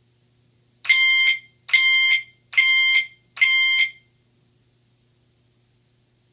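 Pyrotronics MTL MultiTone fire alarm horn, set as a single-stroke chime, sounding four short, even tones a little under a second apart, then stopping. Four strokes are the simple zone code for zone 4, the sprinkler water flow zone in alarm.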